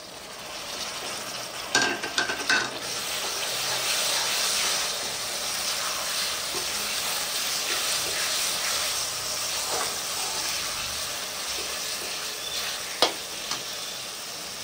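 Chopped tomatoes frying with browned onions and ginger-garlic in hot oil: a steady sizzle that builds over the first couple of seconds while a spoon stirs the pan. The spoon knocks against the pan a few times about two seconds in and once near the end.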